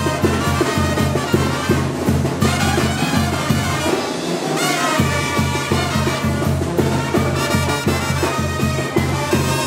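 Brass band music with a steady beat, trumpets and trombones over a bass line; the bass drops out for about a second roughly four seconds in, then comes back.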